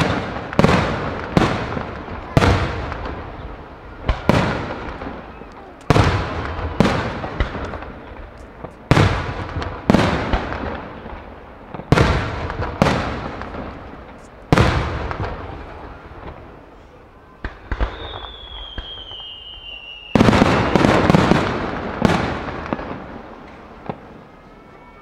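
Aerial firework shells bursting overhead: a string of sharp booms about a second apart, each trailing off over a second or so. Near the end comes a quick cluster of overlapping bursts. In a short lull before it, a thin falling whistle sounds.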